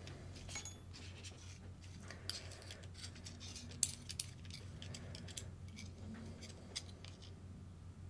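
Light clicks, taps and short scrapes of small parts and a hand tool being handled while a steering link is measured. The sharpest click comes just under four seconds in, with another shortly after. A steady low hum runs underneath.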